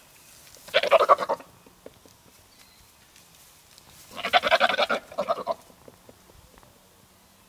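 Goat bleating twice: a short bleat about a second in, then a longer bleat around four seconds in that breaks off briefly and resumes.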